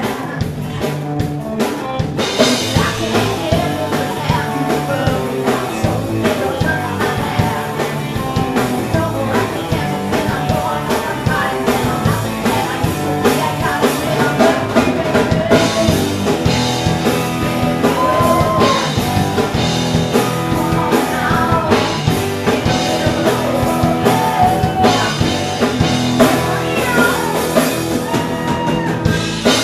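Live rock band playing loudly: two electric guitars, bass guitar and drum kit keeping a steady beat, with the singer playing a harmonica lead into the microphone.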